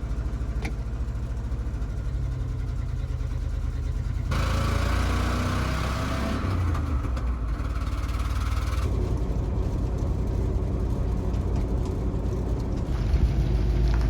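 Old manual-gearbox vehicle's engine running, louder with a rising pitch about four seconds in as it revs or pulls away. Its exhaust leaks at the manifold, as the owner jokes.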